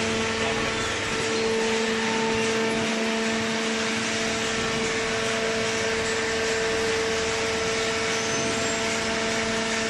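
Single-cylinder vertical baler's hydraulic power unit running steadily, its electric motor and pump giving a constant pitched hum over a broad mechanical noise.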